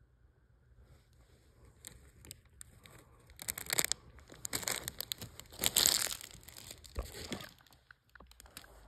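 Clear plastic wrapping crinkling as it is handled and pulled open, in irregular crackling bursts that grow loudest in the middle and die away near the end.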